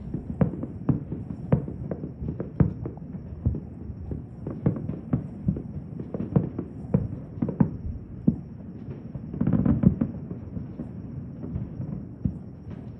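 Fireworks going off in an irregular string of sharp bangs and pops, about two or three a second, over a low steady rumble. A denser burst of crackling about nine to ten seconds in is the loudest part.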